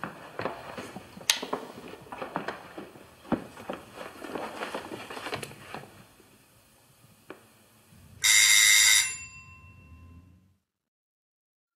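Scattered clicks and knocks for several seconds, then a bell rings loudly for about a second, a little after the middle, and fades away.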